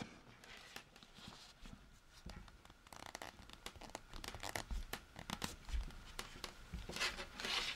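Light clicks and rustling of a circular knitting needle and yarn being handled as stitches are slid along the cable onto the needle. The sounds are sparse at first and more frequent from about three seconds in.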